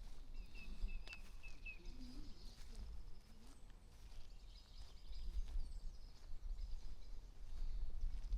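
Garden birdsong: a run of about five short chirps in the first two seconds, over thin, high twittering from other birds, with a low rumble that comes and goes and grows stronger in the second half.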